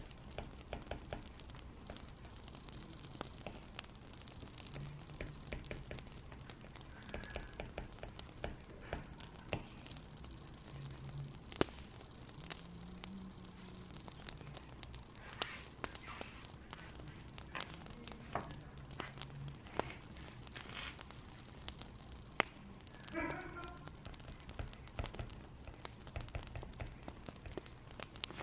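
Wood fire crackling, with many small irregular pops and snaps.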